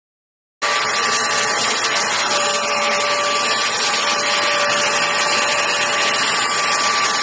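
Keromee 2-in-1 cordless handheld vacuum cleaner running at full speed: a loud, steady rush of air with a high motor whine, cutting in suddenly about half a second in and holding an even level.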